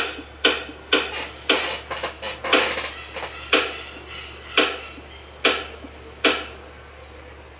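Pulley on a Brastemp/Consul washing machine's transmission (agitator mechanism) being pushed up and down by hand, giving about a dozen sharp, irregular clacks that stop about six seconds in. The pulley is knocking on its play, a knock the repairer regards as normal for this mechanism.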